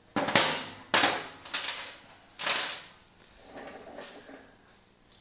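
Metal hand tools clanking: five sharp knocks in the first three seconds, each with a brief metallic ring, then quieter rattling and handling noises.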